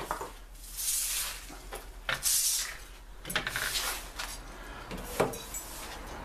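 Stiff broom swept across a concrete floor in a few short swishing strokes, with scattered knocks and clicks.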